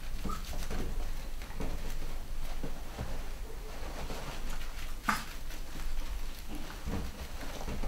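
Cavachon puppies scuffling and padding about on artificial grass as they play, a patter of small soft knocks and rustles, with one short high squeak about five seconds in.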